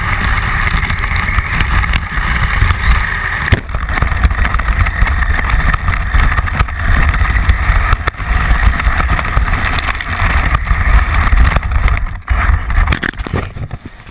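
Small motorboat running steadily at speed, with a heavy low rumble and wind buffeting the microphone; the sound drops away abruptly right at the end.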